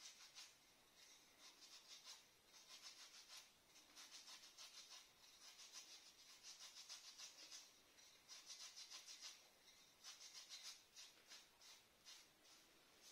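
Faint scratchy rubbing in repeated short runs, a second or so each, with brief pauses between.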